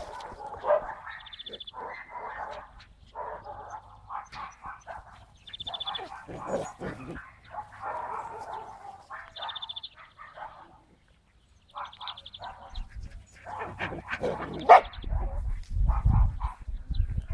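Dogs barking in short, repeated bursts, with louder barks near the end. Low rumbling on the microphone comes in over the last few seconds.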